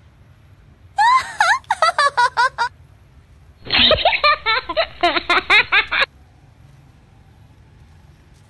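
Two laughing sound effects dubbed over the footage. A short giggle starts about a second in, then a longer run of rapid "ha-ha" laughter follows, and each cuts off abruptly.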